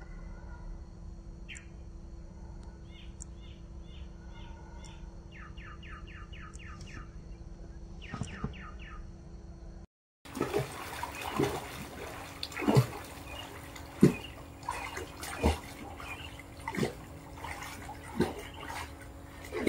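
A low steady rumble with short series of bird chirps, then, after a cut, water splashing in a swimming pool as a swimmer on an inflatable ring kicks, with a louder splash about every second and a half.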